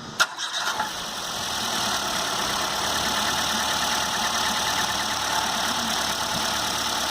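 Ford EcoSport's Sigma engine starting on its first start after repair: a click, a brief crank, then it catches and settles into a steady idle. It idles without the engine noise it was brought in for.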